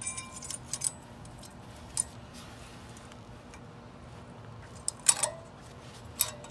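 Light metallic clicks and clinks of a wire brake-pad anti-rattle clip being fitted by hand against the pads and caliper of a front disc brake: a few in the first second, one about two seconds in, and a cluster around five seconds in.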